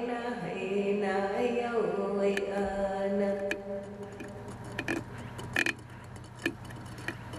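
A chanting voice holds long, slowly changing notes, fading out about halfway through. Scattered sharp clicks and cracks follow, irregularly spaced, over a low steady hum.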